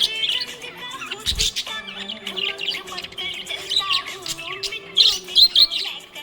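Budgerigars chirping and warbling in a continuous, busy chatter of quick high notes, with a cluster of louder sharp chirps about five seconds in.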